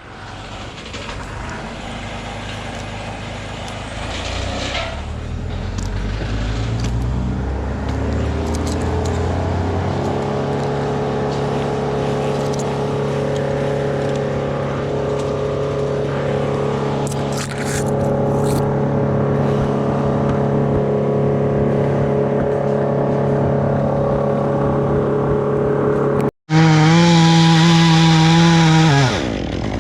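A motor engine speeds up over several seconds and then runs steadily at high speed. After a sudden cut, a louder chainsaw runs at full throttle for about three seconds, then drops back.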